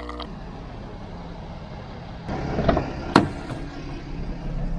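A vehicle or boat engine running with a steady rumble, with two sharp knocks about half a second apart a little under three seconds in.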